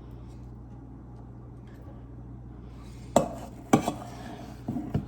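A few sharp clinks of a utensil against a dish: two louder ones about three seconds in and a few lighter ones near the end, over a steady low room hum.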